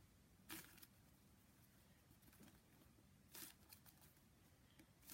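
Near silence: room tone with two faint, brief rustles, about half a second in and a little past three seconds in.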